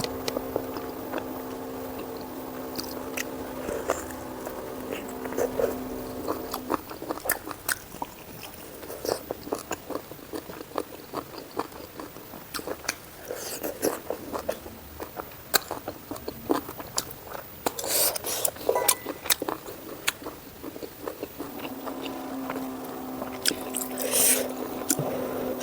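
Close-miked eating sounds: wet chewing, biting and mouth smacks, with a few sharper crunches, such as from papad, around the two-thirds mark and near the end. A steady hum runs under the first few seconds and returns near the end.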